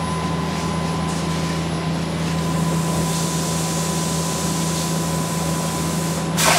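Okuma CNC lathe running a turning cycle behind its closed doors, with coolant spraying onto the part: a steady machine hum with a constant high tone over a hiss. About six seconds in the tone stops and the sound switches abruptly to a louder hiss.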